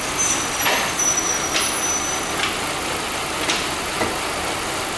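Vehicle lift being lowered in a workshop: a steady hiss with a few short clicks and a thin high whine early on.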